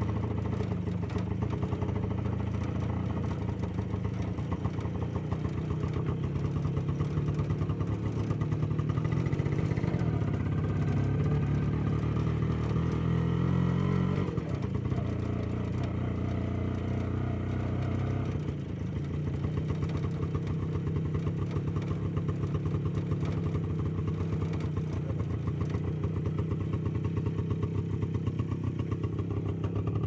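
A vehicle engine running steadily throughout, a little louder for a stretch in the middle and settling lower about two-thirds of the way in.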